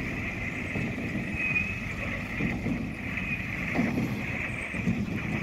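Faint, irregular rubbing and light knocks from a toy tanker truck being handled, over a steady hiss.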